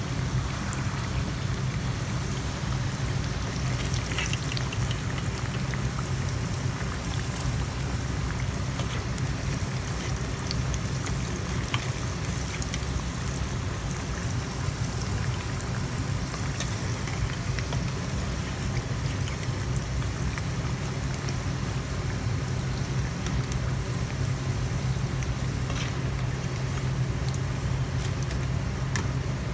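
Eggplant slices frying in hot oil: a steady sizzling hiss with scattered crackles and pops, over a steady low hum.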